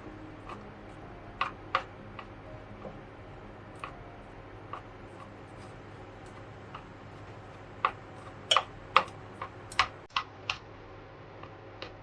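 Scattered light clicks and taps at an uneven pace, sparse at first, then a quicker run of sharper ones about eight to ten and a half seconds in.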